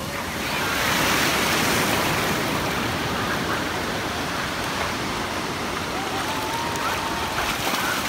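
Ocean surf breaking and washing in the shallows: a swell of rushing noise about a second in that then settles into a steady wash.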